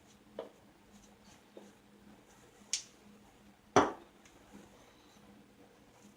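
A few small clicks and knocks of shaving gear being handled on a hard surface, sparse over a quiet room, with a sharp high click near the middle and the loudest knock just after it.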